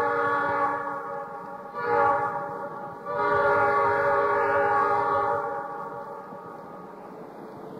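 Train horn sounding a chord of several tones in three blasts: one ending about half a second in, a short one about two seconds in, and a longer one from about three to five seconds in. After it a steady, lower rumble continues.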